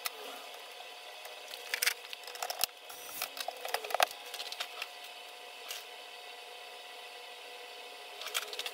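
Scattered clicks and knocks from a laptop being handled, clustered in the first half and again briefly near the end, over a steady faint hum.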